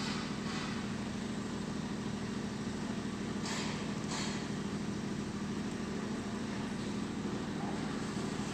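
An engine idling steadily, a constant low hum. Two brief soft rustles come about three and a half and four seconds in.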